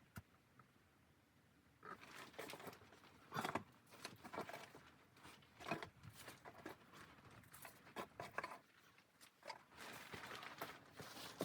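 Faint, irregular rustling with scattered light knocks.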